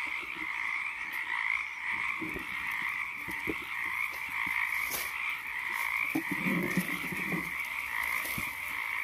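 Dense chorus of many frogs calling at once, a steady unbroken drone, with scattered rustles and snaps of dry reed stems and leaf litter underfoot.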